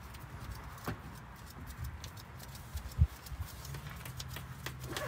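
Scattered light clicks and knocks, with one louder thump about three seconds in, over a low steady rumble.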